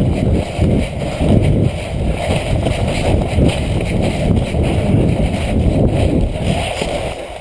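Loud, uneven rumbling wind and movement noise on a body-worn camera's microphone, pulsing irregularly, that eases off near the end.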